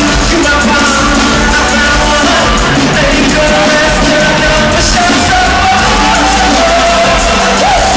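Live R&B band music, loud and continuous: a male singer singing into a microphone over drums, keyboards and electric guitar, heard through the arena's sound system.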